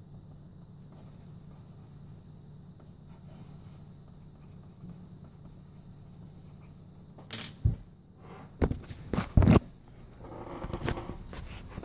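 Faint pencil strokes scratching on paper, then from about seven seconds in several sharp knocks and a rustle as the camera is handled and picked up off the desk.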